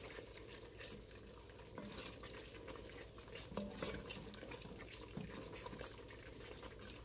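Wooden spoon stirring a bean stew in an enamelled cast-iron pot: faint sloshing of the liquid, with a few soft knocks of the spoon against the pot.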